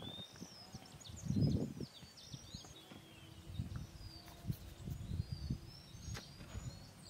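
Outdoor ambience with small birds chirping in short, quick high calls, over a few low muffled rumbles, the loudest about a second and a half in.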